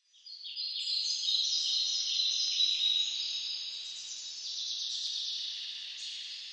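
A dense, high-pitched shrill buzzing in several overlapping layers, like a chorus of insects. It swells in within the first second and thins out slowly over the last few seconds.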